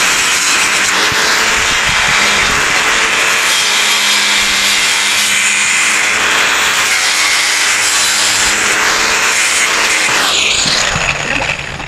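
Power metal cutter cutting through metal stock: a loud, steady cutting noise. Near the end the cut stops and the motor winds down in a falling whine.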